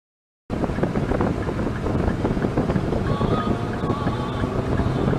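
Steady road and wind noise of a car driving at highway speed, picked up by a dashcam inside the car: a dense low rumble that starts abruptly about half a second in.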